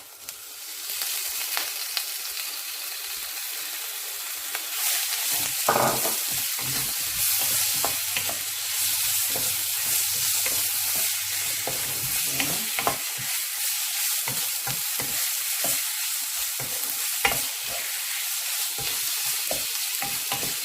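Thinly sliced pork belly frying in hot olive oil with onion and garlic, a steady sizzle that picks up about a second in, while a utensil stirs it and clicks against the pan now and then.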